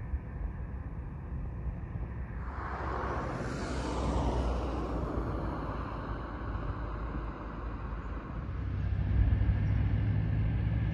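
A road vehicle passing by: its tyre and engine noise swells about two and a half seconds in and fades away over the next few seconds. A low wind rumble on the microphone runs underneath and grows stronger near the end.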